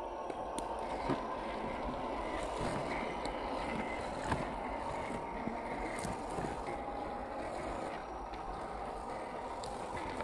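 1/10-scale RC crawler's electric motor and geared drivetrain whirring steadily as it climbs loose dirt, with a few sharp clicks from the tyres and chassis on clods and stones.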